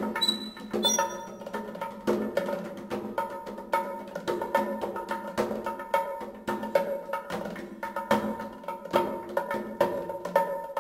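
Percussive background music: a dense run of quick, uneven strikes over steady pitched tones.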